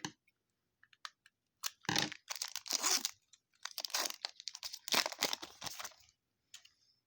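Foil wrapper of a trading-card pack being torn open and crinkled, in two long bursts of crackling.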